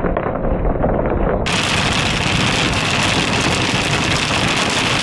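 Rain and small hail pelting a moving car's windscreen and body, with tyre spray from the slushy road. About a second and a half in, the sound switches abruptly from a muffled wash to a brighter, hissier one.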